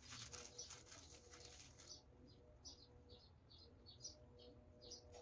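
Faint, quick clicking rattle of small styrofoam beads being shaken out of their container, for about the first two seconds. After that, faint short high chirps follow a few times a second.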